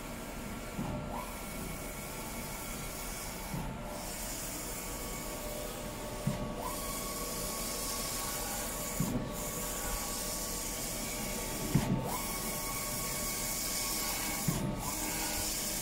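Wide-format eco-solvent inkjet printer printing, its print-head carriage sweeping back and forth over the media with a steady hiss. About every three seconds the carriage turns at the end of a pass with a short knock and a brief rising whine, and the hiss dips for a moment at each turn.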